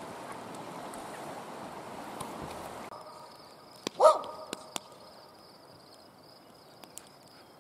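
Fast river water rushing, cutting off about three seconds in; then a dog barks once, loud and short, about a second later, with a few sharp clicks around it.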